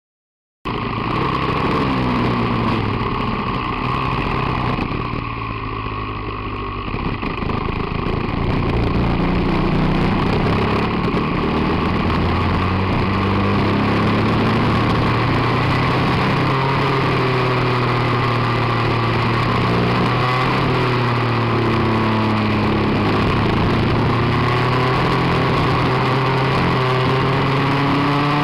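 Rotax Max 125cc two-stroke kart engine heard from onboard the kart, cutting in abruptly just under a second in and then revving up and down continuously, its pitch rising and falling with the throttle; it is briefly quieter a few seconds in before holding loud and high.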